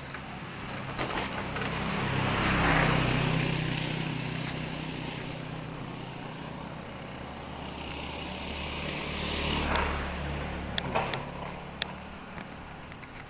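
A motor vehicle's engine going by close at hand, swelling loudest about three seconds in and again near ten seconds before fading. A few sharp clicks come near the end.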